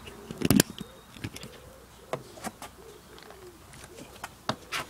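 A sharp knock and clatter of handling about half a second in, then a few light clicks. Behind them a pigeon coos repeatedly.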